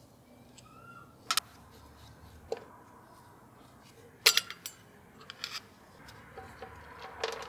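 Screwdriver and switch parts clicking and clinking against the metal housing of an old Metabo bench grinder while its rotary switch is taken apart: a handful of sharp clinks, the loudest cluster about four seconds in.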